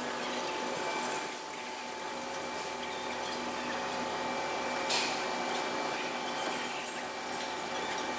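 Steady factory machinery noise: an even hiss with a few steady hum tones running through it, and a brief knock about five seconds in.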